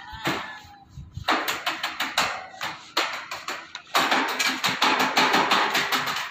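Rapid, irregular metallic clatter and tapping on corrugated steel deck sheets as they are laid and worked on the bridge deck. The strikes start about a second in and come thick and almost continuous in the last two seconds.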